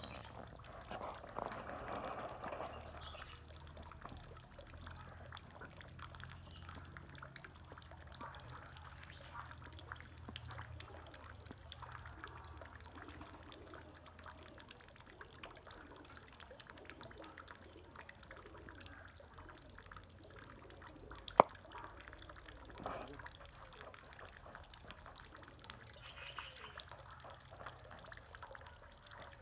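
Quail chicks peeping softly: many faint, short calls and small ticks over a low steady hum, with a single sharp click about 21 seconds in.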